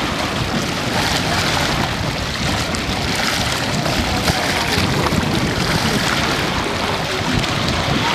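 Wind buffeting the microphone over a steady rush of choppy lake water.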